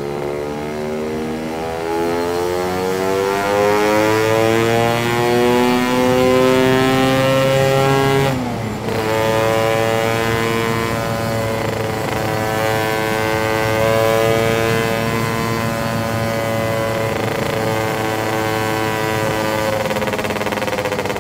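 Lambretta scooter's two-stroke single-cylinder engine through a SIP Nordspeed touring exhaust, pulled hard under full throttle. The revs climb steadily for about eight seconds, dip sharply at a gear change, then hold high and rise slowly in the next gear.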